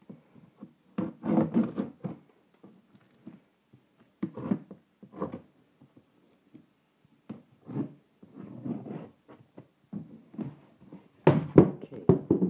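Cardboard shipping box being handled and its flaps pulled open: irregular thumps, scrapes and rustles, loudest near the end.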